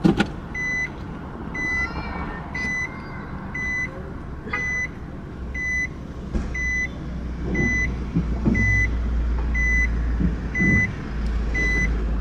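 Car's reverse parking warning beeping inside the cabin, a short even tone repeating about every 0.8 seconds, over the low hum of the engine, which grows louder about halfway through as the car moves. A sharp thump right at the start.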